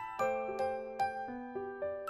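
Gentle instrumental background music: a soft melody of struck, ringing notes, about two or three a second.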